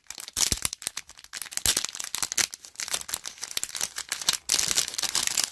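Packaging being torn open and crinkled by hand: continuous irregular crackling and rustling with sharp snaps throughout.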